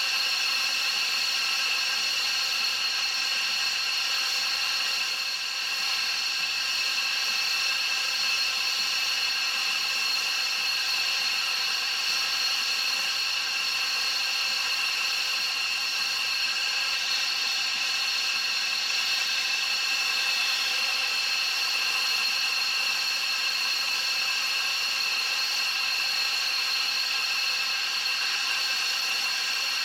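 Aircraft turbine engine running steadily on the ground, a constant high-pitched whine that does not change in pitch or level.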